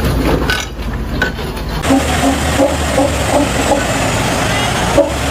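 A large vehicle's engine running with a steady low hum under a noisy wash of sound.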